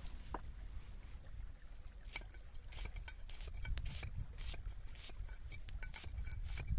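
Knife chopping an onion against a flat stone, a string of short sharp cuts at about two to three a second from about two seconds in, over a low steady rumble.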